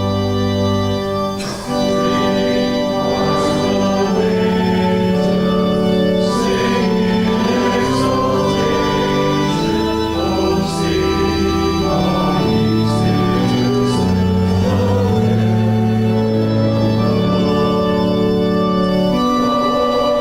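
Organ playing a hymn in slow, sustained chords that change every second or two.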